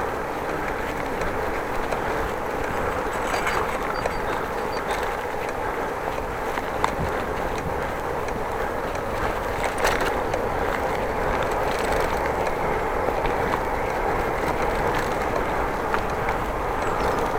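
Steady rushing noise of a bicycle ride, with tyre and road rumble and a few scattered clicks, one sharper about ten seconds in.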